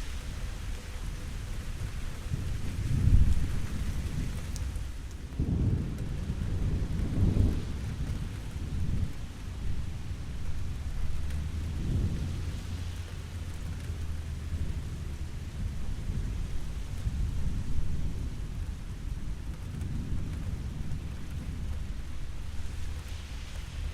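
Steady rain falling, with low rolling thunder rumbling several times. The loudest rumble comes about three seconds in, with more between about five and eight seconds and again near twelve.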